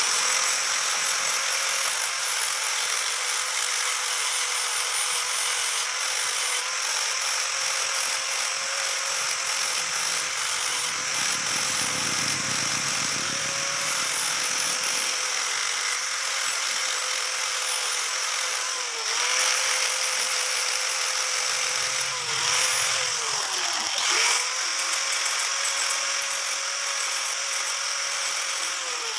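Electric angle grinder with a yellow disc running continuously against a small metal silencer part, a steady motor whine over harsh grinding noise. The whine dips briefly three or four times in the last third as the disc bites harder into the metal.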